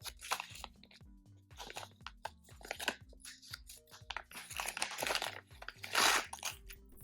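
Crinkling and rustling of jewelry packaging in several bursts, loudest about six seconds in, as the gold chain is unwrapped, over background music with a steady beat.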